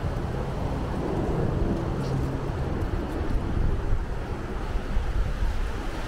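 Wind buffeting the microphone: a steady low rumble that flutters in level.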